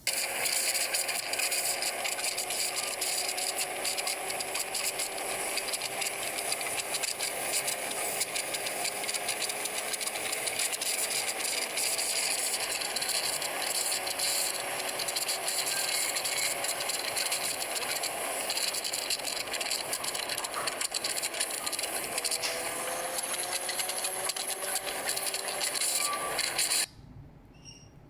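Wind noise: a loud, steady rushing hiss with a rattling texture and faint engine-like tones that rise near the end. It cuts off suddenly shortly before the end.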